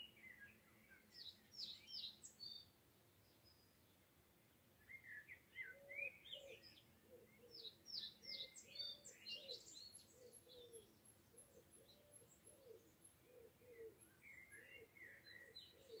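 Faint birdsong: bursts of quick, varied song phrases from small birds, with a lower call repeating about twice a second from about five seconds in. A faint, even, high ticking joins in about ten seconds in.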